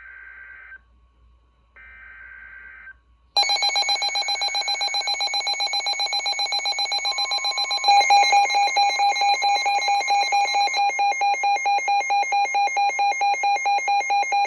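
Two short bursts of warbling data tones from a NOAA weather radio, the SAME alert header, then the radios' severe thunderstorm warning alarm, a fast, even, multi-pitched beeping. At about 8 s a second radio's alarm joins and the beeping gets louder.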